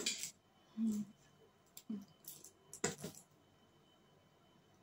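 Metal fork clicking and scraping against a foil-covered plate while twirling chowmein noodles: a few sharp clicks, the loudest near the three-second mark, then quiet. A couple of brief low hums from the eater in between.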